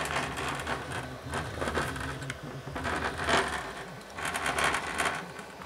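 Rockville USS10 powered subwoofer playing pulsing low bass from a head unit's signal, with scattered clicks and rattles. The output has come on only after the speaker-level inputs were unplugged and plugged back in, a sign of its faulty auto turn-on.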